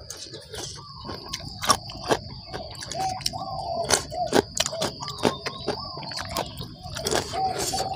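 Birds calling in repeated short chirps over a steady high-pitched insect drone, with sharp clicks of eating close to the microphone.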